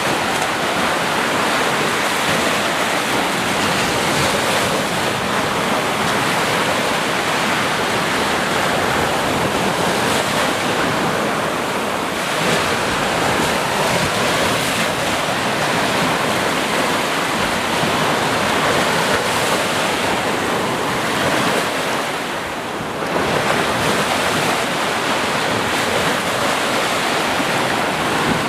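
Ocean waves breaking and washing on the shore in a steady, continuous surf, with gentle swells in level and a short lull about three-quarters of the way through.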